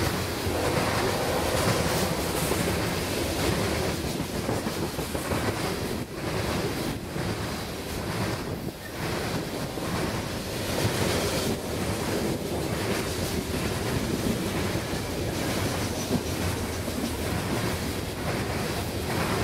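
Train rolling past as a steady, rushing noise of rail cars on the track, with wind buffeting the microphone.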